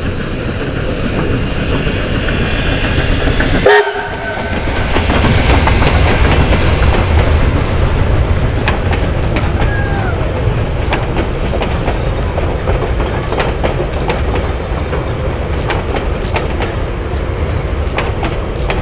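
New Zealand Railways JA-class steam locomotive JA1275 passing with its train, a loud steady rumble, with a sharp bang about four seconds in. The carriages then roll past with their wheels clicking over the rail joints.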